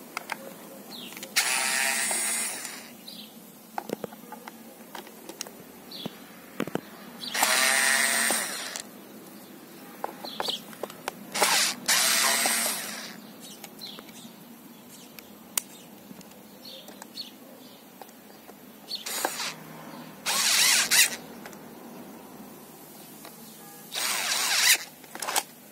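HYCHIKA 6 N·m cordless electric screwdriver running in short bursts of a second or two, about six times, turning the screws in the back of a plastic keyboard case. Small clicks and knocks of the bit and screws come between the runs.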